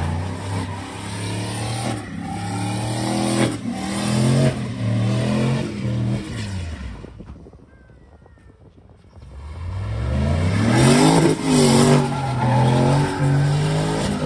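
Turbocharged Chevrolet Silverado pickup's engine revving hard and rising and falling in pitch while its rear tires spin in donuts. It eases right off about seven seconds in, then climbs back to high revs about two seconds later.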